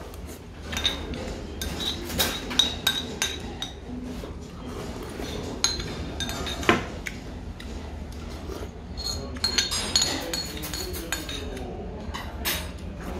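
A metal spoon clinks again and again against a ceramic bowl as soup is scooped up and sipped, in short sharp taps, some with a brief ring.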